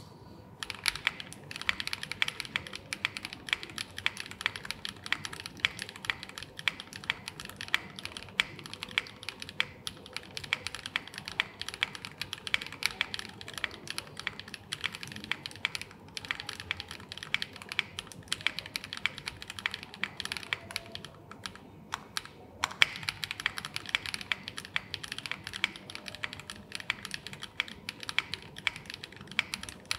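Fast, continuous typing on the Coder 66, an all-aluminium custom mechanical keyboard, with keystrokes clacking in quick succession and brief pauses about sixteen and twenty-two seconds in.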